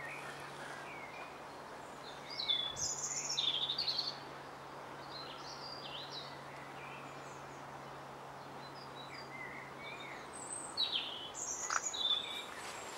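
Small songbirds chirping and singing in short, quick phrases, loudest a few seconds in and again near the end, over a faint steady low hum.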